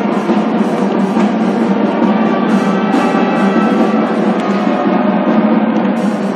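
Music with drums and percussion playing, loud and continuous.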